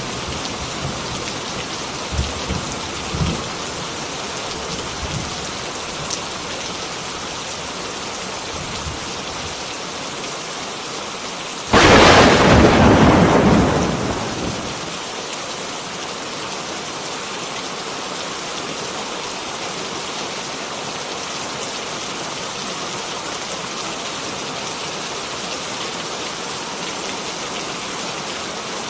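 Heavy rain falling steadily, with a few low rumbles of thunder in the first few seconds and a sudden loud thunderclap about twelve seconds in that fades away over the next three seconds.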